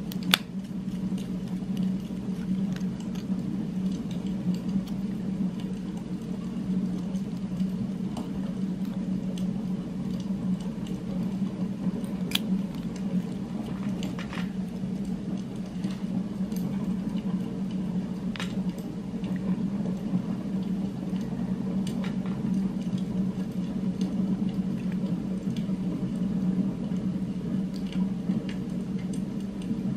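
Steady low hum of an added background ambient track, unchanging throughout, with a few faint sharp clicks here and there, the loudest just after the start.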